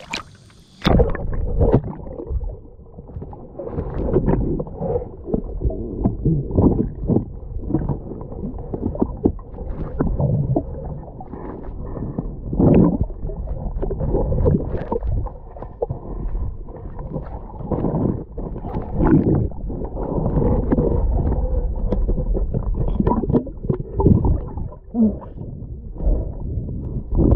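Muffled sloshing and gurgling water heard with the microphone underwater, with irregular dull knocks and swells throughout; the sound turns muffled suddenly about a second in.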